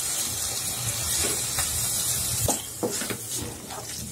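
Spinach purée sizzling in a kadai on a high flame as boiled rice is tipped in, then a wooden spatula stirring it, with a few knocks of the spatula in the second half.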